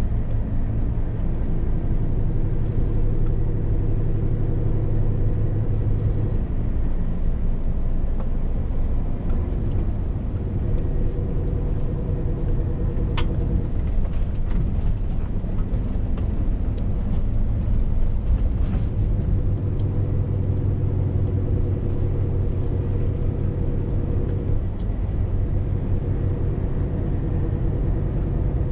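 Scania R450 lorry's 13-litre straight-six diesel running under way, with road rumble. The engine note drops back and picks up again several times, and there is a single sharp click about thirteen seconds in.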